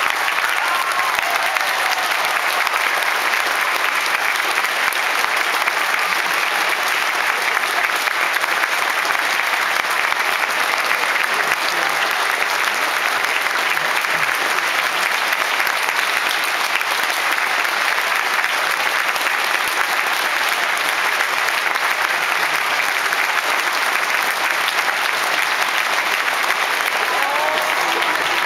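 Large theatre audience applauding: dense, steady clapping that holds at an even level throughout.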